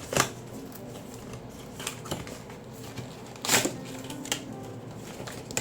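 Keycap box and packaging being handled: two short, loud rustling scrapes, one right at the start and one about three and a half seconds in, with a few smaller clicks between, over quiet background music.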